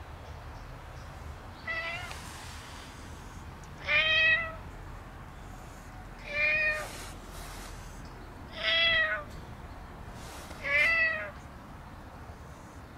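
A cat meowing five times, short calls about every two seconds, the first one fainter.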